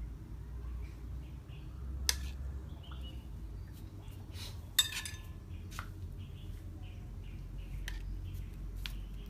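Kitchen utensils clinking and knocking against dishes a handful of times, the loudest knock about halfway through, over a steady low hum.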